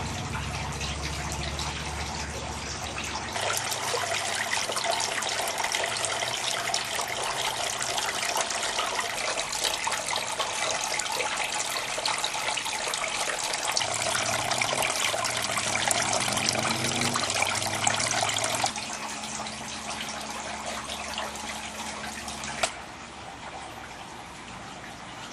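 Fountain water splashing and trickling in a steady rush, which jumps louder about three seconds in and cuts down abruptly twice in the second half.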